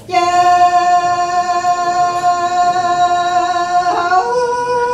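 A voice singing Hmong lug txaj, coming in suddenly with one long, steady held note and stepping up to a higher held note about four seconds in.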